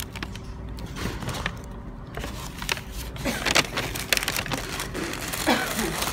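Paper bag and paper food wrapper rustling and crinkling as they are handled and unwrapped, with quick crackles that come thicker in the second half.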